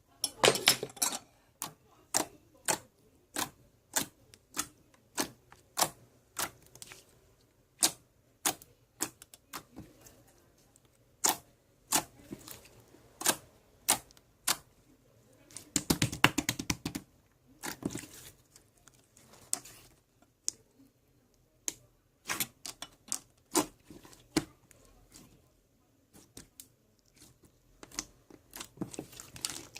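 Slime being pressed and stretched by hand, making sharp sticky clicks and pops at irregular intervals, with a denser run of crackling about sixteen seconds in.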